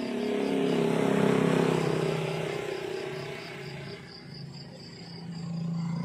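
A motor vehicle passing close on the road, its engine loudest about a second in and dropping in pitch as it goes by, then a motorcycle engine building near the end. Crickets chirp steadily in a rapid, even pulse behind the traffic.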